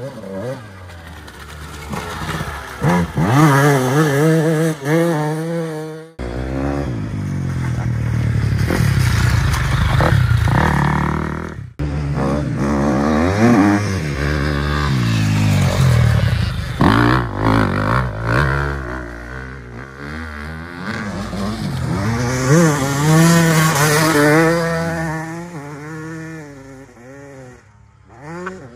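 Dirt-bike engine revving hard through the gears as the rider accelerates along a muddy track. The pitch climbs and drops repeatedly, and the sound breaks off abruptly twice, about six and twelve seconds in.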